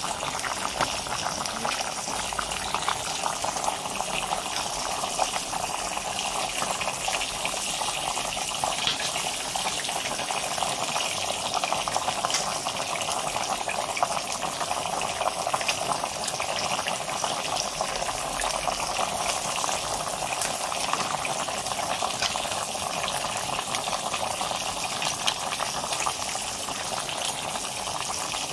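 A pot of soup boiling, a steady bubbling hiss with a dense fine crackle.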